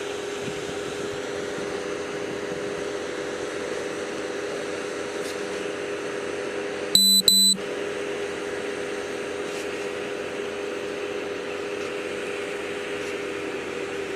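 A steady low background hum of body-camera audio. About seven seconds in it is cut by two short, loud electronic beeps back to back, during which the background drops out entirely, as when a stretch of redacted audio is bleeped out.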